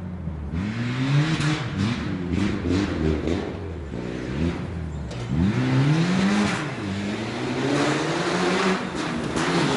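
Mitsubishi Lancer Evolution rally car's turbocharged four-cylinder engine revving hard and dropping off over and over as the car slides through a bend and comes closer. Short sharp cracks are heard between the revs.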